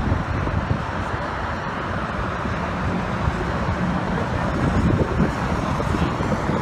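Wind buffeting the microphone, over a steady rumble of city traffic.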